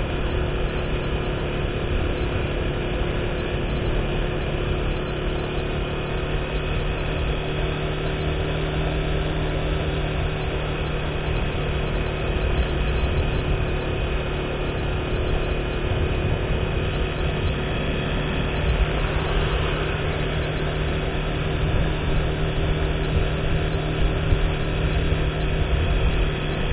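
Steady engine hum and road noise of a vehicle cruising along a street, heard from on board.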